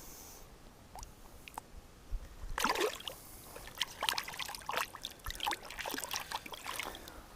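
Water splashing and trickling in irregular small bursts, starting about two and a half seconds in.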